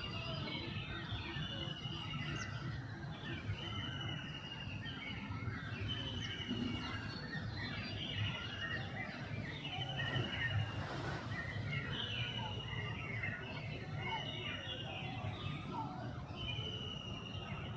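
Outdoor bird chorus: one bird repeats a short, level trill about every two seconds, with other birds chirping around it over a steady low background rumble.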